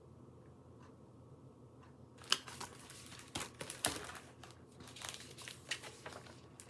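Paper pages of a picture book being handled and turned: quiet at first, then from about two seconds in a run of irregular faint crinkling rustles and small clicks.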